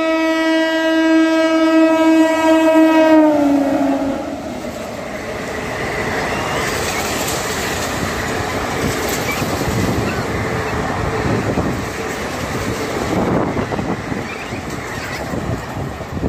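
Indian Railways train horn held for about four seconds, its pitch dropping as the locomotive passes at speed, then the steady rumble and clatter of passenger coaches running past, easing a little near the end.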